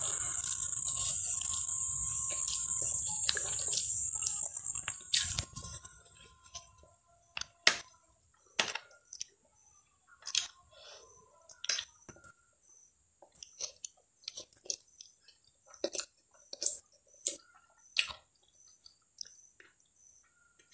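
Noodles being slurped into the mouth for the first few seconds, then close-up chewing with many short wet mouth clicks and smacks.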